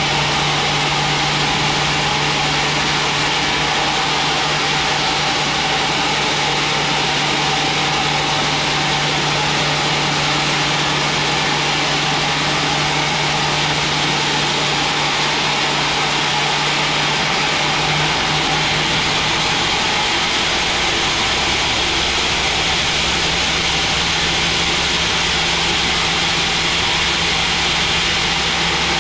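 Large band sawmill running as a thick mahogany log is fed through the blade and ripped into a slab. A steady machine hum with cutting noise, its low tone shifting slightly higher about eighteen seconds in.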